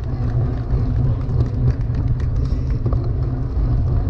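Loud, steady low rumble with scattered short clicks and rattles, the wind-buffeted, jolting noise of riding on a mountain bike.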